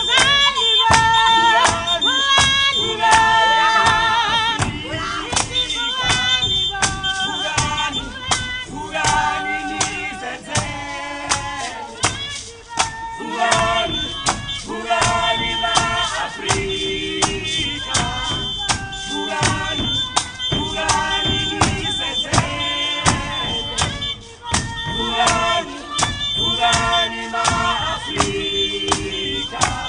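A group of voices singing a traditional South African Ndebele song in harmony, over a sharp, even beat of about two strokes a second.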